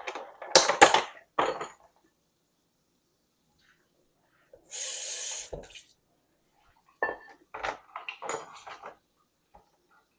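Kitchenware being handled while eggs are prepared: sharp knocks and clatter of dishes and utensils, a rushing noise lasting about a second midway that ends in a thump, and a quick run of clinks and knocks near the end.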